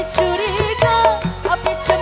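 Live dangdut koplo band: a female singer singing a melody with wavering, ornamented pitch over electronic keyboard, bass and the steady beat of kendang hand drums.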